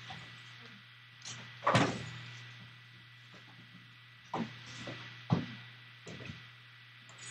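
A few dull knocks and thumps over a steady low hum. The loudest comes about two seconds in, and smaller ones follow between four and five and a half seconds in.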